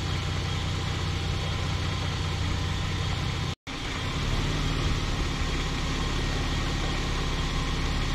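Vauxhall Omega MV6's 3.0 V6 idling steadily, with a slight noise around the auxiliary belt that the owner takes for the belt finding its shape. The sound cuts out for a split second just over three seconds in.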